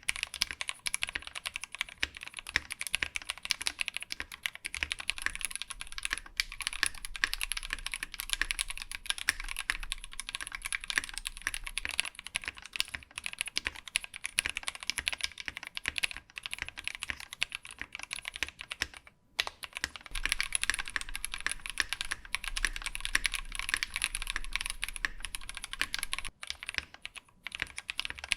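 Fast, continuous typing on a mechanical keyboard with Frog linear switches: a dense stream of keystroke clacks, with one short pause about two-thirds of the way through.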